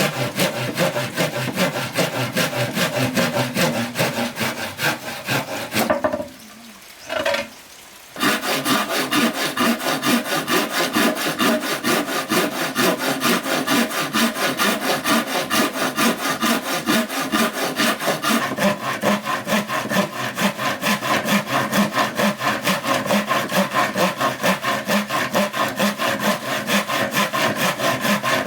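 Saw cutting through bamboo in fast, even back-and-forth strokes, with a short pause about six seconds in.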